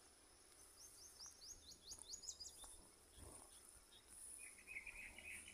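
Faint outdoor birdsong: a quick run of high, falling chirps, then a lower rapid trill starting near the end, over quiet background hiss.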